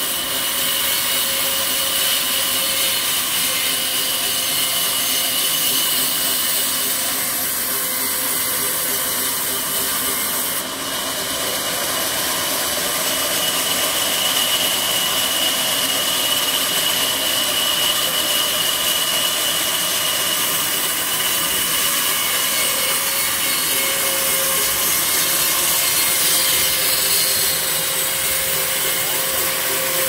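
Sawmill band saw running steadily as it rips a long slab of banyan wood, with a constant high whine over the cutting noise. The level dips briefly about eleven seconds in.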